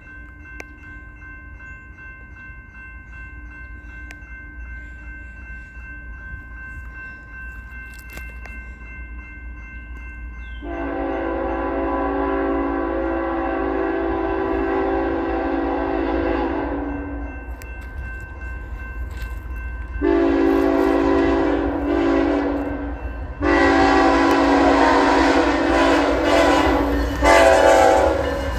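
BNSF diesel freight locomotive's air horn sounding three long blasts as the train approaches a grade crossing, a chord of several tones; the first about a third of the way in, the other two close together near the end as the train gets louder. Before the first blast a crossing bell rings steadily with a low rumble of the approaching train underneath.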